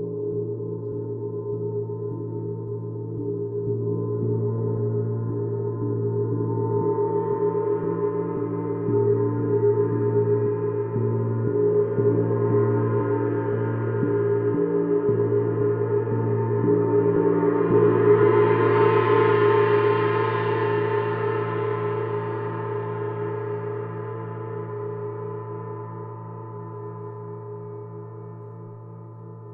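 Paiste Sidereal Moon planet gong ringing under steady playing, its deep hum swelling as bright overtones build to a loud, shimmering peak about eighteen seconds in, then slowly dying away.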